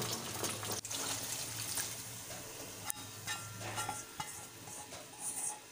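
Hot oil sizzling in a kadai as chunks of green capsicum and whole dried red chillies fry for a tempering (baghar). Past the middle the sizzle thins and gives way to stirring in the pan.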